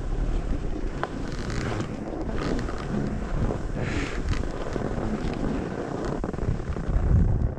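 Wind buffeting the microphone, a steady rumbling roar with short patches of higher hiss coming and going.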